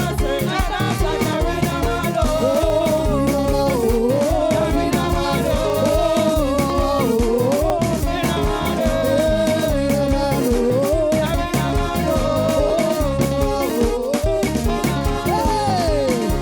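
Church praise band playing upbeat dance music, with a steady beat under a wavering lead melody line.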